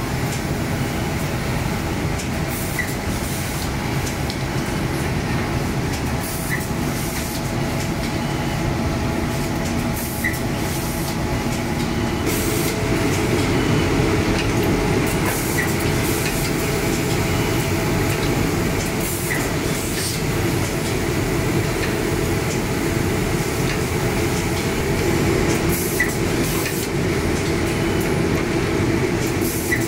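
Heliot Socksteam-MIDI sock boarding and steaming machine running steadily: a dense low mechanical rumble, with short faint high chirps every few seconds.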